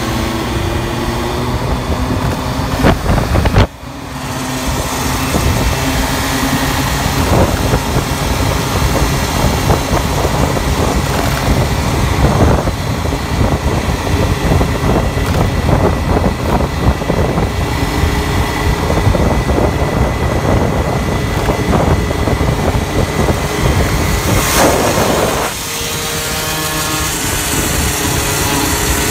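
Two-stroke moped engine running steadily at speed while being ridden, its note holding level; the sound dips briefly about four seconds in. The engine, fitted with a 19.5 mm Dell'Orto carburettor, runs slightly rich.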